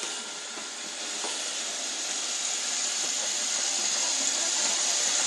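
Robot vacuum cleaner running with a steady hiss that grows gradually louder.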